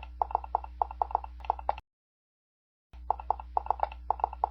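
Dubbed footstep sound effect: quick, uneven clicking steps over a steady low hum. It cuts off abruptly about two seconds in and starts again about a second later.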